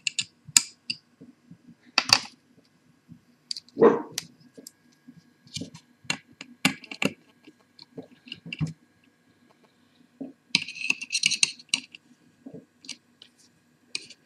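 Sharp clicks and taps of a screwdriver working at the platter clamp on a laptop hard drive's spindle. A dull knock comes about four seconds in, and about a second of rough scraping about ten seconds in.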